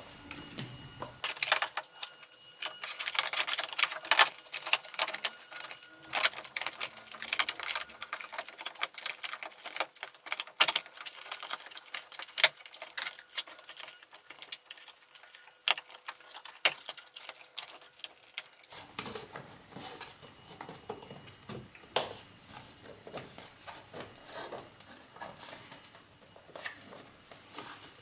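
Black plastic lower airbox housing of a Ford Focus clicking and knocking against the engine-bay parts as it is worked back into place: many irregular small clicks, busiest in the first third, then sparser with a few louder knocks.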